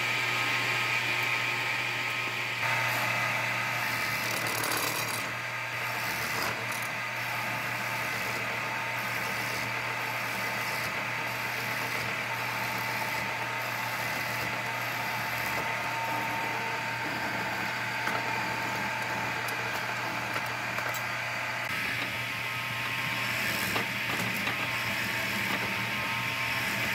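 Horizontal mortising machine running steadily, its spinning bit cutting a mortise into a wooden table leg. The sound changes about three seconds in.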